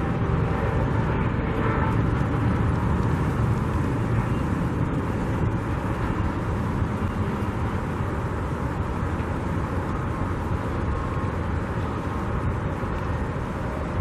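Steady low outdoor rumble, slowly easing off. A droning tone at the start fades away within the first two seconds.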